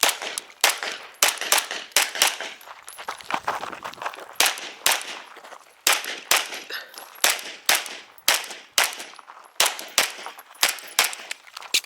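Canik Rival 9mm pistol firing quick strings of shots during a timed action-pistol stage. The sharp cracks come several a second, broken by short pauses between target arrays.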